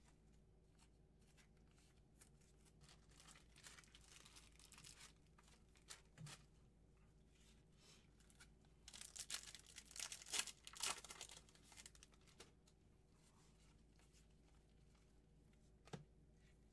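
Faint crinkling and tearing of a trading-card pack wrapper being opened and cards handled, in a soft spell of rustling about three seconds in and a louder burst of crinkling about nine seconds in, with a couple of light clicks.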